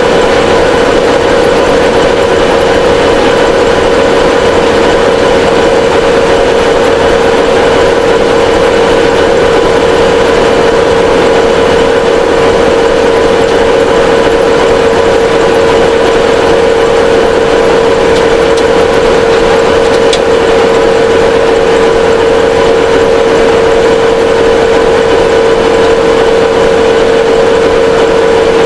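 2TE10U diesel locomotive standing with its engine idling, a loud steady whine with a strong single tone that holds unchanged throughout.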